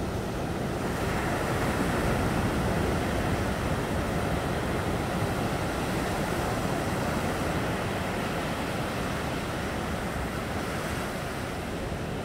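Ocean surf breaking and washing up onto a sandy beach and rocks: a steady rushing wash of white water that swells a little about a second in.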